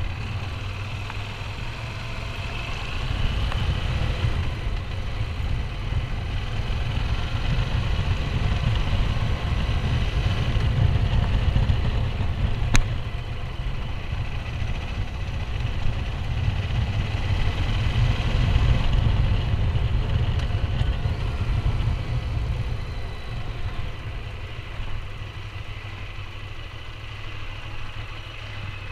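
QJ Motor SRT 800's parallel-twin engine running as the bike is ridden slowly, the sound swelling and easing off several times. A single sharp click comes just before halfway.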